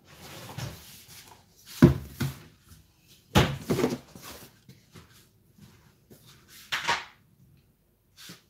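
Kitchen cupboard rummaging and a rigid plastic storage tub being handled, its lid pulled off: a few sharp knocks and clatters with rustling between them, the loudest about two and three and a half seconds in.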